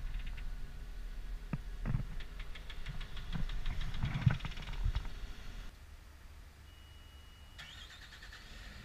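Knocks and clicks of handling in a CAT 938K wheel loader's cab over a low rumble, then, about six seconds in, the loader's diesel engine idling quietly.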